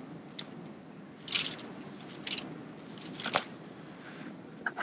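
A few short rustles and soft clicks over a steady room hum: a person moving up to a lectern and handling a book.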